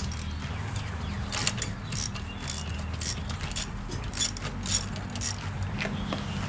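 Ratchet wrench with a spark plug socket clicking as it backs a spark plug out of a lawn mower's OHV engine: a sharp click about every half second, starting about a second in and stopping near the end.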